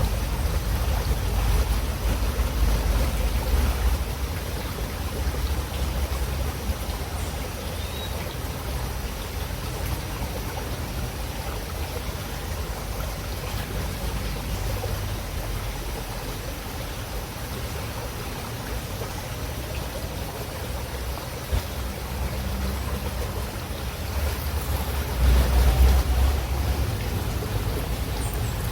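River water running steadily, an even rushing hiss, with a low rumble that swells in the first few seconds and again near the end.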